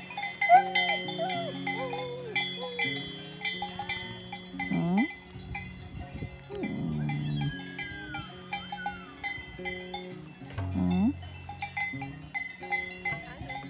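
Livestock bells clanking irregularly, many ringing strikes overlapping, with a few short pitched calls among them.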